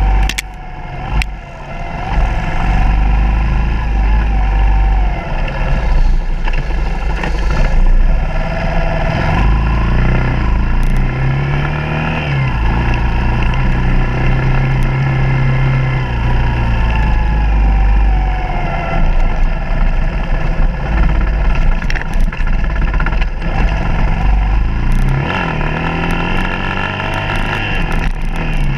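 Suzuki DR200's single-cylinder four-stroke engine pulling along a dirt trail, its revs rising and falling as the rider throttles on and off. Under it there is a heavy low rumble and scattered sharp knocks from the bike bouncing over the ground.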